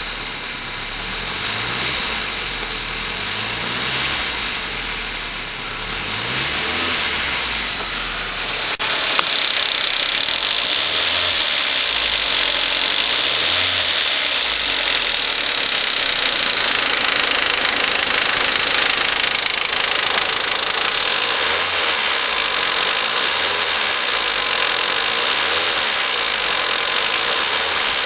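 Volkswagen Passat 1.8T turbocharged four-cylinder engine running with a clicking, ticking noise that others have told the owner may be a lifter. About nine seconds in it gets louder and a steady high whine comes in.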